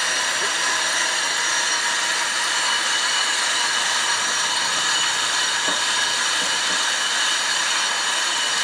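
Steady rushing hiss of background shop noise, with faint high steady tones running through it.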